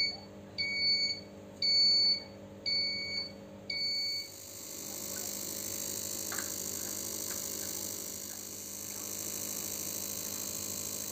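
Five short electronic beeps about a second apart, then a homemade relay-coil inverter generator running with a steady high-pitched whine over a faint low hum, driving LED bulbs from a DC supply.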